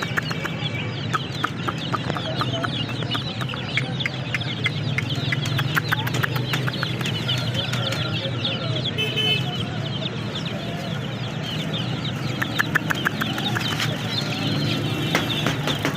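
Many chicks peeping at once, a continuous chorus of short, high, overlapping chirps over a steady low hum.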